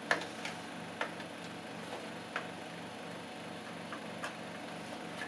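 Scattered light clicks and taps of a DDR2 memory module being handled and fitted into a motherboard's memory slot, over a faint steady hum.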